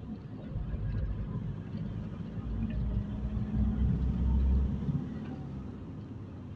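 A car's engine and road rumble heard from inside the moving car's cabin. The low rumble swells louder for about two seconds in the middle, with a steady hum, then eases back.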